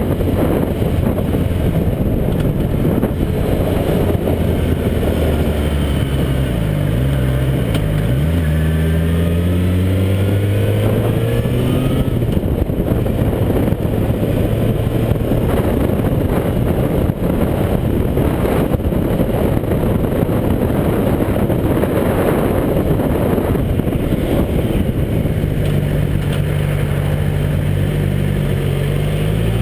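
Motorcycle engine running under way, with wind rushing past the microphone. About seven seconds in, the engine note drops and then climbs again as the bike accelerates; through the middle the wind rush covers most of the engine, and the engine pulls up again near the end.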